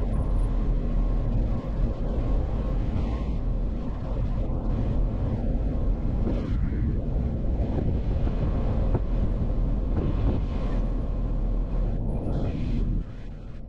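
Sped-up off-road vehicle driving noise, a dense steady rumble that dips briefly near the end.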